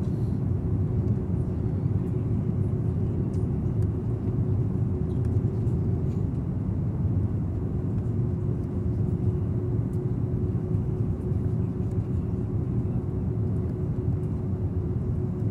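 Steady cabin noise inside an airliner descending on approach: a low rumble of engines and airflow, with a faint steady hum.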